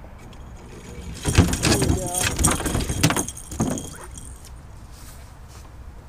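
A hooked blue catfish thrashing and splashing at the surface beside the boat, in a burst from about one to four seconds in.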